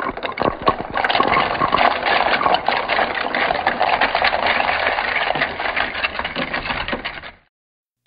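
Jigsaw puzzle pieces pouring and tumbling onto a hard surface: a dense clattering rattle of many small clicks that cuts off suddenly near the end.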